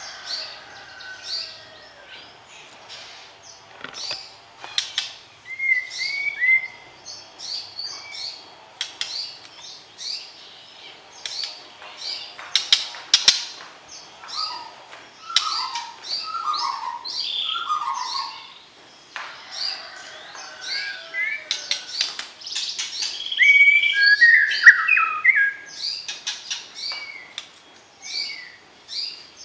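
White-rumped shama (murai batu) singing: a rapid, varied run of short whistled notes, chips and clicks, some lower slurred whistles among them.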